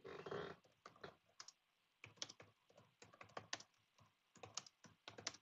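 Typing on a computer keyboard: a run of irregular key clicks, after a short burst of noise at the start.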